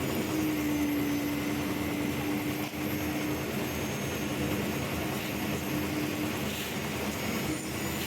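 Concrete lift mixer machine's engine running steadily at a constant speed, a continuous mechanical drone with a steady hum.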